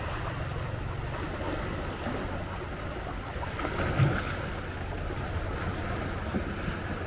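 Small waves lapping on a rocky shoreline with wind buffeting the microphone, and a single thump about four seconds in.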